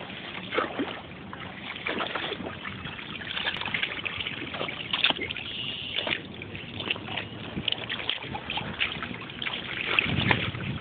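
Shallow lake water splashing and sloshing irregularly as two dogs wade and paw at the shore's edge, dunking for a floating ball. A gust of wind rumbles on the microphone near the end.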